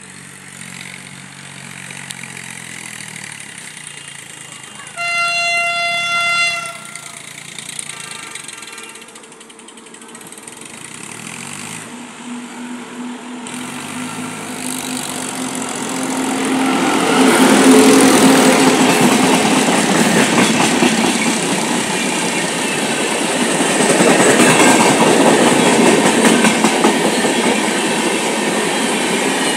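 Indian Railways electric locomotive's horn blows one long, steady blast about five seconds in, then a fainter, shorter one. The express then closes in at speed and passes close by with a growing rush and rumble, its LHB coaches clattering past for the second half.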